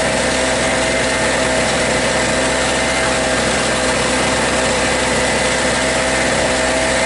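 Small red Storm Cat portable generator's two-stroke engine running at a steady speed, its even hum unchanging.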